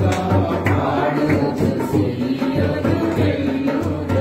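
A Telugu Christian devotional song playing, with singing over a steady drum beat.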